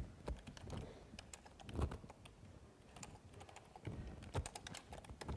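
Computer keyboard being typed on in short, irregular runs of keystrokes with pauses and a few heavier strokes: shell commands being entered at a Linux text console.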